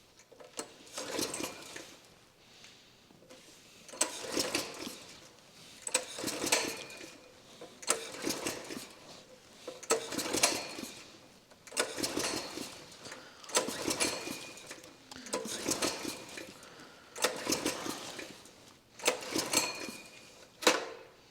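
Small engine fitted with a vintage engine-powered tire pump, turned over by hand about ten times, each spin a short burst of rattling and clicking roughly every two seconds. The pump is not building pressure, which the owner puts down to its old rubber diaphragm probably no longer working.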